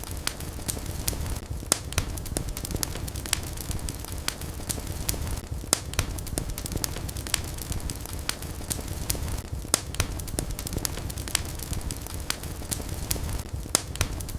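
Wood fire burning in a fireplace: a steady low rumble of flames with frequent sharp crackles and pops, several a second.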